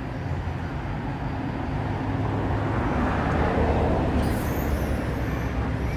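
Road traffic: a steady low rumble of motor vehicles, with one vehicle passing that swells in loudness about three to four seconds in and then fades.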